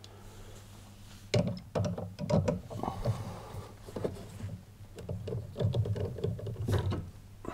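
Irregular clicks and knocks of a socket wrench on an extension loosening the nut that holds a tumble dryer's fan blade, with hands handling the plastic fan housing. A low steady hum sits underneath.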